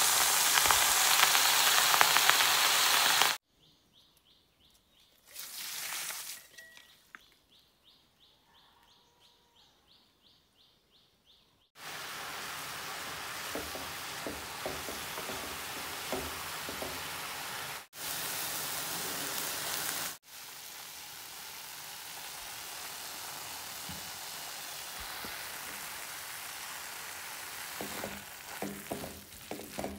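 Black nightshade leaves sizzling as they stir-fry in a pan, with a spatula knocking and scraping as they are turned. The sizzle comes in separate stretches: it cuts off a few seconds in and stays nearly silent for several seconds before it starts again.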